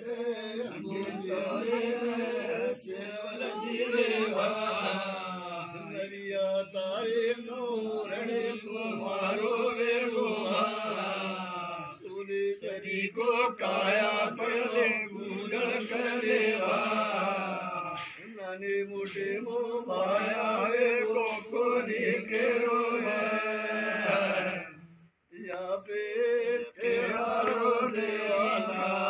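Men chanting a devotional prayer on a steady, sing-song pitch, with a brief pause about 25 seconds in.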